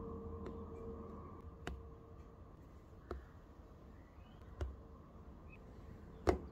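Fingertip taps on the touchscreen of an Autel MaxiCOM MK808BT diagnostic scan tool: about five soft clicks spaced a second or more apart, the sharpest near the end, over a faint steady hum.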